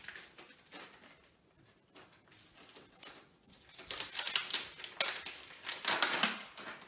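Plastic packaging of a set of paintbrushes crinkling and rustling as it is handled and opened, in quick clicks. It is sparse at first and denser and louder over the second half.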